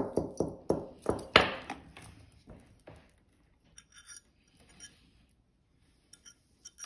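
Metal rings clinking against each other and against a metal ring-sizing mandrel as they are picked up and one is slid on to be sized. There is a quick run of sharp clicks over the first two seconds, then a few faint ticks.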